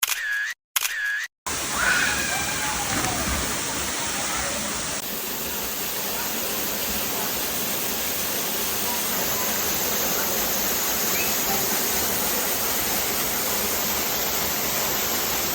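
Steady rush of a waterfall, an even noise without pitch. It starts about a second and a half in, after a few short clipped sounds cut by gaps of dead silence.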